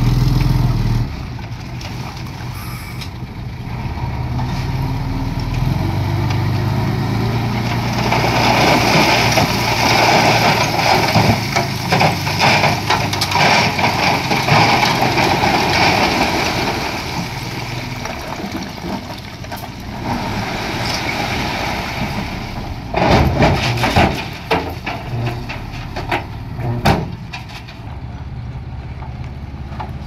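Heavy diesel construction machinery running with a steady low engine hum. About eight seconds in, a loud rushing, rattling noise rises over it for several seconds. Later a run of sharp knocks follows.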